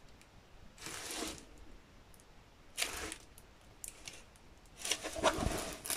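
Rustling and crinkling of a diamond painting canvas and its clear plastic cover film being handled, in three short bursts.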